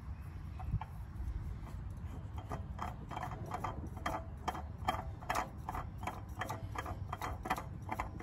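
A new oil filter being turned onto its mount by hand, making a run of light, quick ticks, about three a second, from a few seconds in. Under them is a low, steady rumble.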